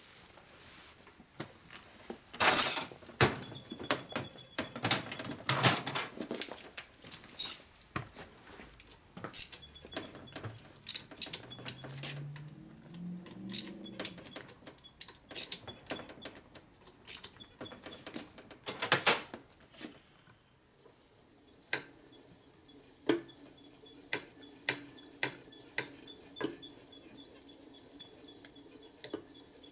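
Metal hand tools and engine parts clinking, tapping and clicking against a Harley-Davidson Evolution engine case on a workbench, in irregular runs of sharp clicks.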